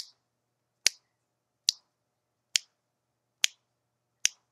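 Finger snaps keeping a slow, steady beat, six sharp snaps a little under a second apart, setting the tempo for a song.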